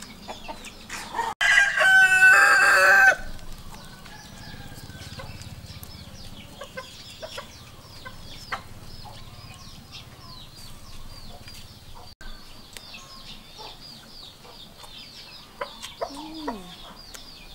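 A rooster crows once, loudly, about a second and a half in, its call lasting about a second and a half.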